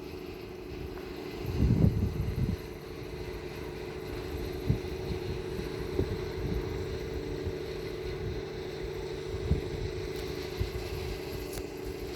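An engine running steadily with a low, even hum, louder for a moment about two seconds in. Scattered short knocks and clunks of work sound over it.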